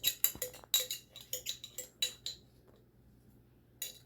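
A spoon clinking and tapping against a dish while seasoning is measured out: a quick run of light, ringing clinks, stopping a little over two seconds in, with one more clink near the end.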